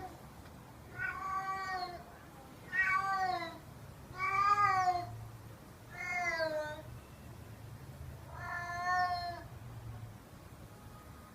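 Domestic cat meowing five times, drawn-out meows about a second and a half apart, each one arching and falling in pitch at the end.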